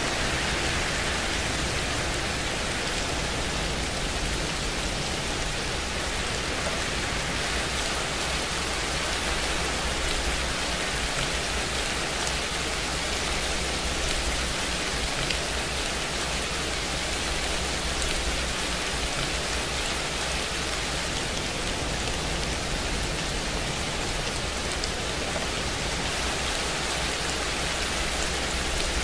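Steady rain noise: an even hiss with faint scattered ticks of drops, unchanging throughout.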